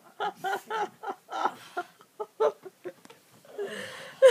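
A person making short broken vocal sounds without clear words, then a breathy rustling noise that ends in a short loud sound near the end.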